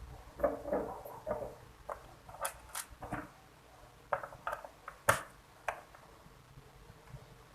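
Small clicks and taps of plastic and metal parts: the back cover and screws of a Lenovo IdeaPad 330 laptop being handled and closed up after a RAM upgrade. A dozen or so sharp ticks come unevenly, with the sharpest about five seconds in, then it goes quiet.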